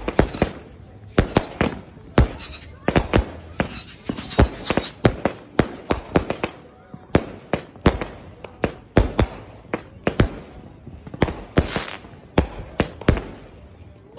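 Consumer fireworks firing in quick succession: a string of sharp bangs, about two or three a second, as shells launch and burst overhead. Over the first five seconds a high whistle that dips and rises repeats alongside the bangs.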